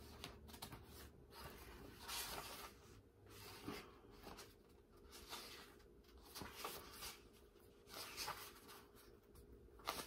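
Faint, soft rustles of paper as the pages of a hardcover book are flipped one after another, about a dozen brief page turns spread through.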